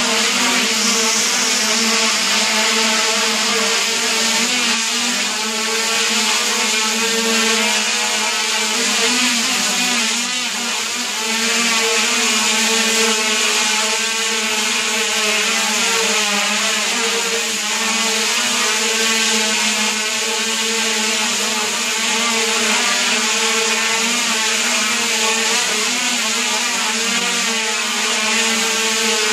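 Quadcopter's four brushless motors and propellers running steadily, a continuous two-tone buzz over a wide rush of propeller wash, wavering slightly in pitch as the flight controller trims motor speeds.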